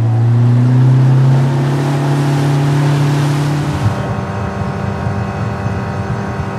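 Yamaha outboard motor pushing a small boat, its pitch rising slowly as it throttles up over the first four seconds, then running steadily at speed.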